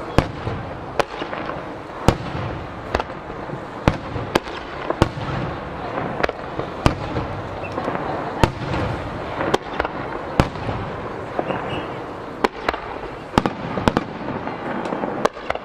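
Japanese star mine fireworks barrage: aerial shells bursting in a run of sharp bangs, one or two a second, over a steady background din. The bangs come closer together near the end.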